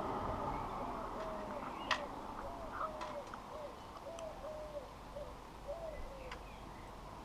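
A bird calling a run of short, low, arched notes, about two a second, that stops near the end. A few sharp clicks and taps come in between, the loudest just under two seconds in.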